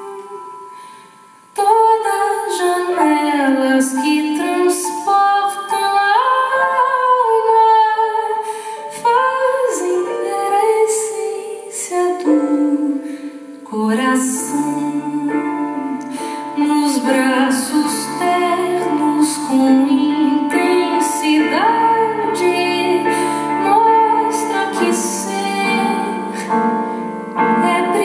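A woman singing a slow ballad live, accompanied by a grand piano. After a short quiet dip at the start, her voice comes back about a second and a half in and carries the melody over held piano chords and low bass notes.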